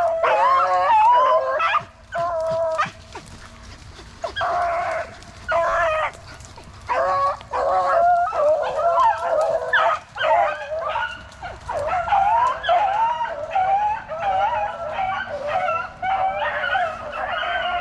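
A pack of rabbit-hunting dogs baying and yipping on a rabbit's trail: scattered calls at first, then a steady overlapping chorus from about halfway on as the pack runs the track.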